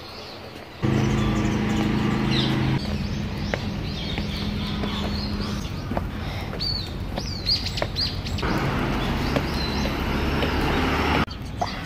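Small birds chirping repeatedly over a steady low engine hum and traffic noise. The sound comes in abruptly about a second in, and the traffic noise grows louder over the last few seconds before cutting off.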